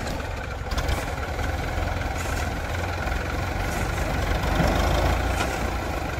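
Diesel tractor engine idling steadily, a little louder for a moment about four to five seconds in.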